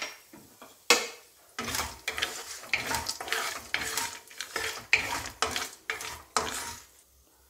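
Wooden spatula stirring peanuts, cashews and dals in hot oil in a non-stick kadai: a couple of knocks at first, then repeated scraping and rattling strokes, about two or three a second, over a light sizzle of frying.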